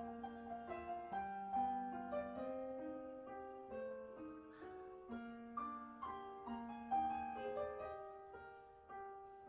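Background piano music: a melody of single notes over lower held notes, growing softer toward the end.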